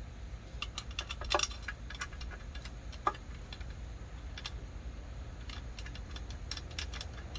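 Light metal clinks and rattles of bolts and the throttle body being handled while it is fitted onto the intake, with a sharper clink about a second and a half in and another about three seconds in.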